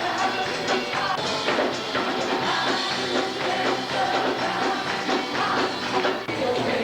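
Live worship band playing an upbeat song with singing over drum kit; a tambourine is heard just before.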